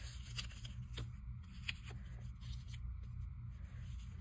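Paper cutouts being slid and pressed onto a glue-book page: soft paper rustles with a few light ticks and taps, over a low steady hum.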